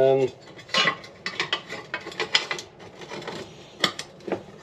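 Metal clicking and rattling from handling pieces at a steel bench vise: an irregular run of sharp ticks and small knocks. A short steady tone sounds right at the start.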